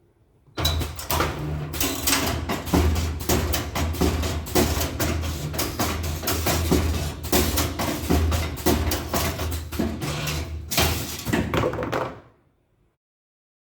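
CNC wire-bending machine working: a dense run of clicks and knocks from the wire feed and bending head over a low motor hum. It starts sharply about half a second in and stops about twelve seconds in.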